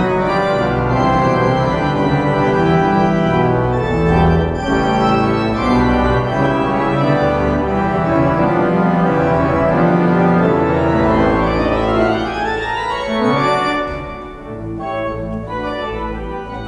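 Church pipe organ playing full sustained chords over a deep pedal bass. Near the end a quick run climbs up into the high notes, then the sound thins and fades.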